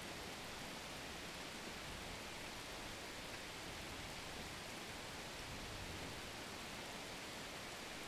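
Steady rainfall: an even hiss of rain.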